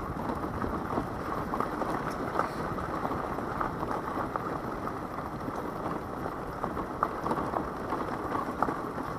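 Daelim Witty 100 scooter riding on a gravel forest road: a steady rough rumble of engine and tyres, with many small ticks of loose stones under the tyres.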